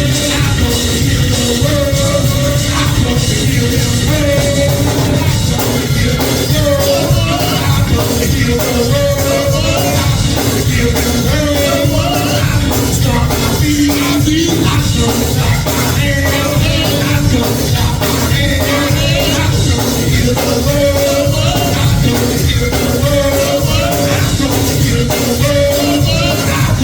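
Gospel praise music with singing over a steady beat.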